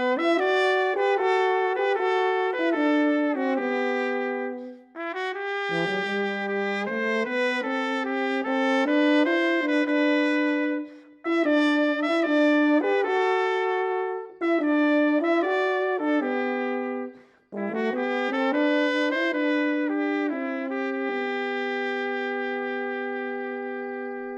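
Trumpet and euphonium playing a slow duet in two parts, in phrases with short breaks between them. It ends on a long held chord that fades away.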